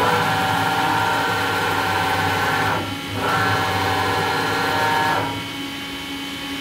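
Bridgeport Torq-Cut CNC mill's DC servo drive whining as the table traverses one way for nearly three seconds, slows and reverses about three seconds in, then runs back for about two seconds, over a steady machine hum. The owner finds the X drive a bit noisy and says it might just be normal or could be the screws getting worn.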